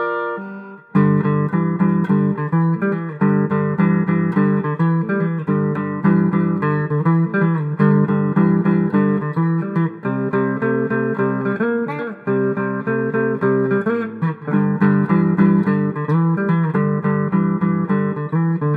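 G&L Comanche electric guitar with three Z-coil pickups, played with a clean tone: a few single notes, then from about a second in a steady run of picked and strummed chords.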